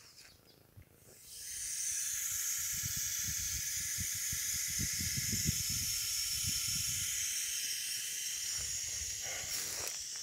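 Steady hiss of water spraying from a garden water line that has just been opened, starting about a second in and holding steady, with some low thuds in the middle.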